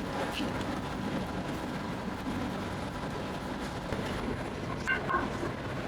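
Steady mechanical rumble of bakery machinery, with a few light clinks, one about half a second in and a short cluster around five seconds in.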